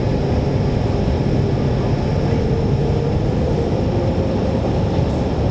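Hydrofoil's engines running steadily: a loud, even drone heavy in the low end, with a thin high whine above it.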